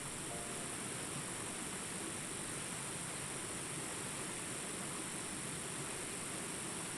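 Steady rushing water of a waterfall, a constant, even roar with no breaks.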